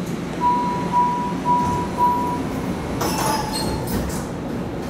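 MARTA rail car's door-closing warning chime: four short steady beeps about half a second apart. About three seconds in, a burst of hissing and high squealing follows as the doors close, over the low rumble of the car.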